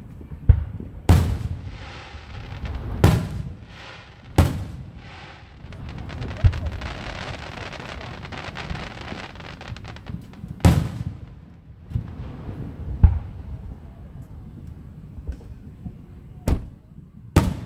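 Fireworks going off: about ten sharp bangs at irregular intervals, several with a lingering echo, and a stretch of dense crackling hiss in the middle.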